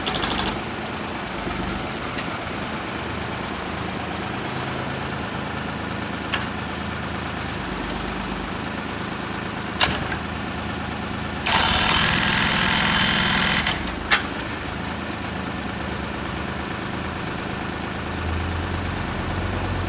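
Tractor engine running steadily, driving the hydraulics of a tractor-mounted OVM 3200 mini backhoe. Its hydraulic breaker hammers a concrete block in one loud stretch of about two seconds past the middle, with a few single sharp knocks before and after. The engine's low note grows louder near the end.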